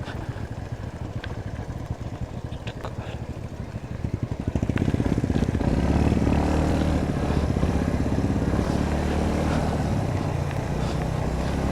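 Royal Enfield Bullet's single-cylinder engine running under way. It gets louder about four seconds in as the bike picks up, then holds steady.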